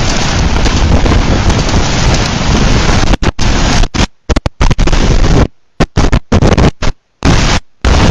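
Loud, even roar of storm wind and rain on the microphone during a tornado. From about three seconds in it keeps cutting out, with short silent gaps between bursts of noise.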